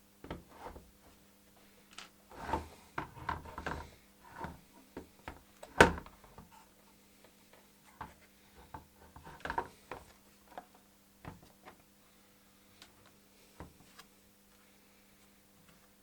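Scattered clicks, taps and light rubbing of a plastic RC transmitter case and its parts being handled, with a sharp knock about six seconds in the loudest. A faint steady hum underneath.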